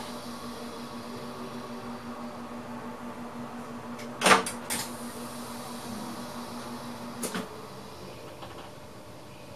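Inside the cab of a VIRM electric train, a steady electrical hum runs under the ride noise. A pair of sharp clicks or knocks comes a little past the middle, and another comes about three-quarters of the way through, when the hum cuts off.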